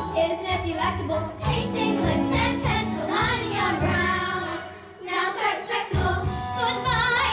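A young girl singing a solo show tune with live keyboard accompaniment, breaking briefly between phrases about five seconds in before singing on.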